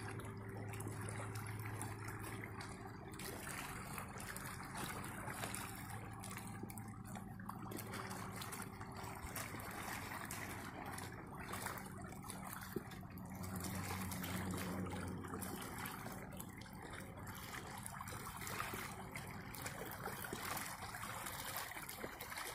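River water lapping and trickling, with a low steady hum underneath.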